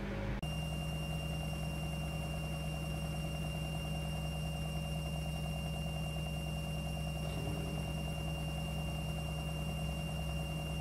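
Midea front-loading washing machine running, a steady motor hum with a high whine and a fast flutter. The sound cuts in abruptly about half a second in.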